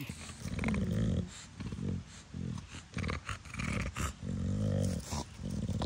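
English bulldog making low growling grunts and heavy breathing in short irregular bursts, about two a second.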